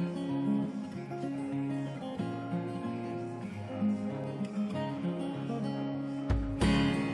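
Background music led by a strummed acoustic guitar, with a deep bass beat coming in near the end.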